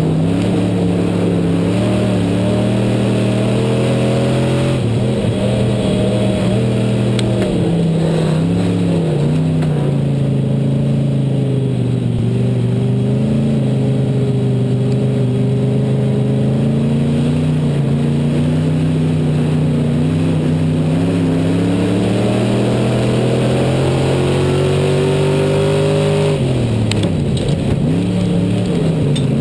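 Onboard sound of an IMCA Southern Sportmod dirt-track race car's V8 engine at racing speed. Its pitch holds steady for long stretches and dips as the driver lifts for the turns, then climbs again under throttle, with a dip about five to eight seconds in and another near the end.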